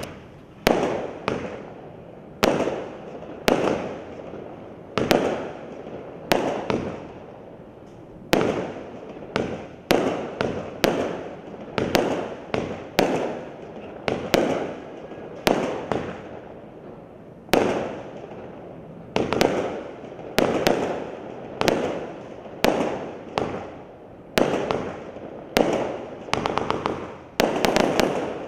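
Witch Doctor firework cake firing aerial shots one after another, about one or two a second. Each shot is a sharp bang followed by a fading tail, and there is a quick flurry of shots near the end.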